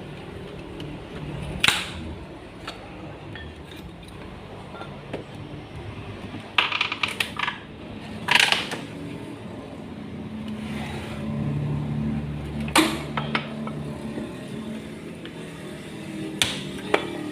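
A parcel being unpacked by hand: scattered knocks, scrapes and rustles of the packaging, with a few louder noisy bursts partway through.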